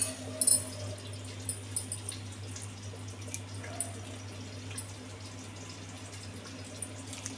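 Quiet room tone: a steady low hum with a few faint, light ticks scattered through it.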